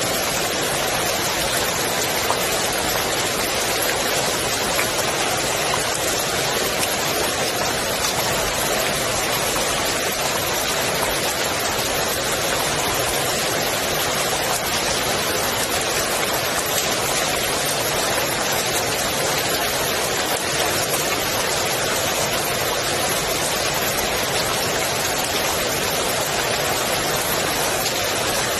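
Rain falling on a swimming pool's water surface, a steady dense hiss of drops.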